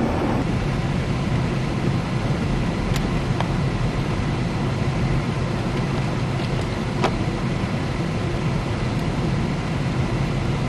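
Steady engine and road noise heard inside the cabin of a car moving through a blizzard, with two faint clicks, one about three seconds in and another about seven seconds in.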